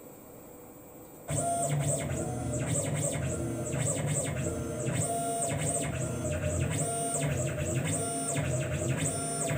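CNC milling machine's drive motors whining through a probing cycle, starting about a second in: the machine makes a run of rapid moves, each with a high whine that rises and falls as the axes speed up and slow down.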